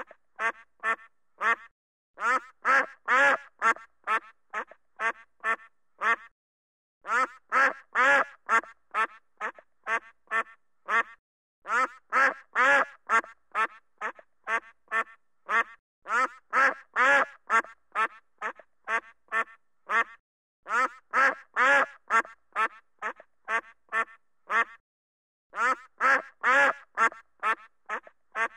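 Duck quacking in fast runs of harsh quacks, several a second. Each run lasts a few seconds and tails off toward its end, with short pauses between runs.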